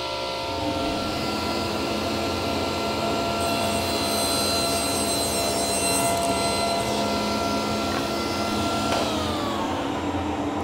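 Table saw running with its dust collector as an oak board is crosscut. About nine seconds in the saw is switched off and its motor winds down, pitch falling.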